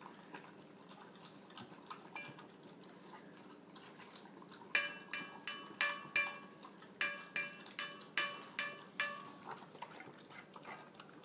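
Two dogs, one a Samoyed puppy, lapping and licking a wet mash of dog food from stainless steel bowls. Soft licking at first; from about five seconds in, quick repeated clinks, roughly four a second, as tongues and muzzles knock the metal bowls and set them ringing.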